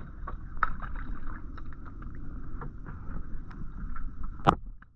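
Steady wind rumble and water against a small outrigger boat, with scattered light clicks and one sharp knock about four and a half seconds in.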